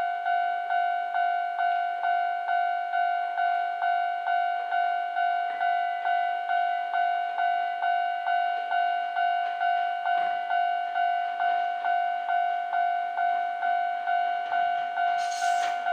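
Japanese level-crossing warning bell ringing, an electronic two-tone ding repeating about two and a half times a second, signalling an approaching train. Near the end a hiss from the train comes in.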